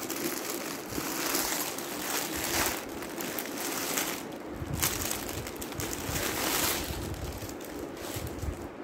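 Rustling and crinkling of embroidered organza fabric and its packaging as the dress pieces are handled and lifted out of their box.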